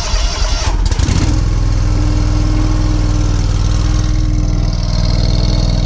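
Hustler Fastrak SD zero-turn mower's Kawasaki engine started with the key: the starter cranks it and it catches about a second in, then runs steadily at an even speed to warm the oil before it is drained.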